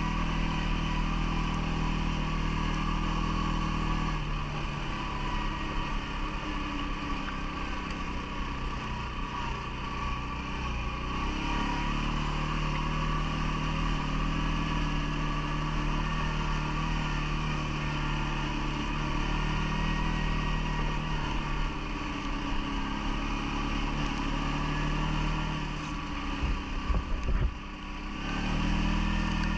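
CFMOTO ATV's engine running while riding, its note dropping about four seconds in and rising again about eleven seconds in as the throttle changes, with a steady whine over it. Near the end come a couple of seconds of irregular loud knocks and buffeting.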